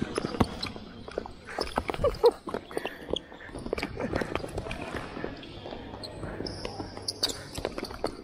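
Futsal ball kicked and bouncing on a hard indoor court, with quick running footsteps, in a string of sharp knocks and taps; the loudest comes a little after two seconds in.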